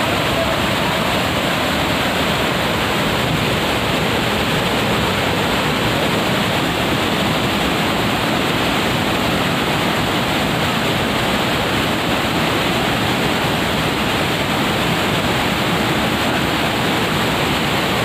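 Waterfall and the stream below it rushing: a loud, steady hiss of falling and flowing water.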